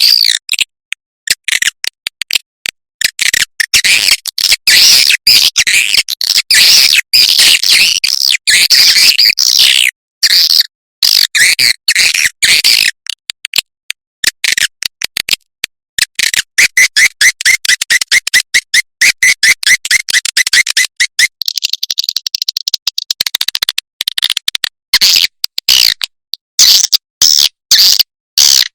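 Recorded swiftlet calls played as a swiftlet-house lure: dense high twittering and chirping, cut into short bursts with sudden silences between. About halfway through comes a few seconds of rapid, evenly spaced chirps, roughly five a second.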